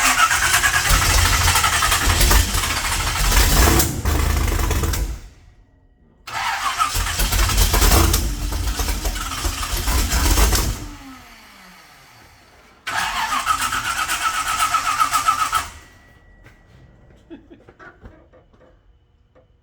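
Carbureted Camaro engine cranked on its starter three times, each try a few seconds long with a starter whine. It does not settle into a steady run, so the engine is not starting properly.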